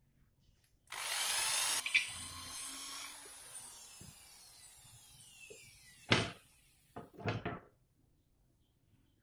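An electric power tool runs at full speed for about a second, then is switched off and its motor winds down over several seconds with a falling whine. A sharp knock follows, then a short clatter.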